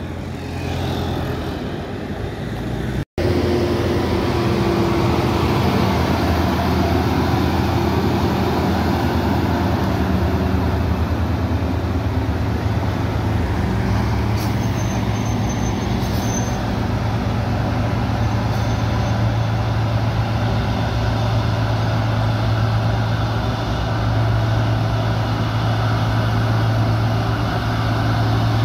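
A heavy road vehicle's engine running steadily with traffic noise: a low, even drone that goes on throughout. The sound drops out for an instant about three seconds in.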